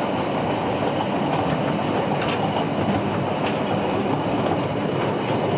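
Narrow-gauge railway carriage running along the line, heard from aboard: a steady rumble of wheels on the track with scattered short clicks and clatter.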